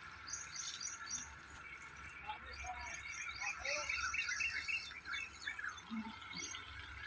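Small birds chirping and twittering: a dense run of short, quick chirps, busiest in the middle.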